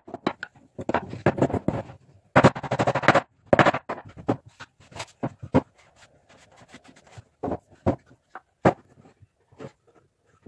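Wood being worked by hand in short, scratchy rubbing strokes, in dense runs during the first three seconds and then in sparser single strokes.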